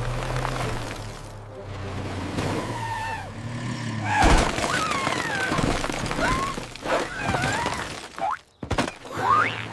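Cartoon sound effects of a mail truck skidding out of control on ice, with a loud crash about four seconds in, followed by wavering and rising squealing glides.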